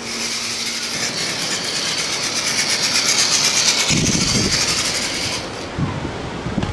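Vaterra Slickrock RC rock crawler's electric motor and gears running with a high, rasping whir, which stops about five and a half seconds in. From about four seconds in, wind buffets the microphone over the sound of surf.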